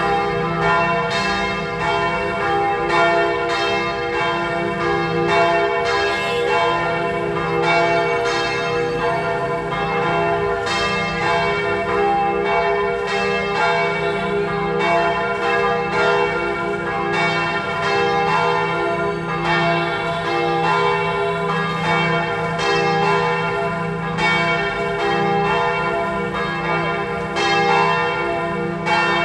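The church bells of St. Joseph's Cathedral, Hanoi, ringing part of their full peal: several bells swinging and striking one after another without a break, their overlapping tones humming on between strokes.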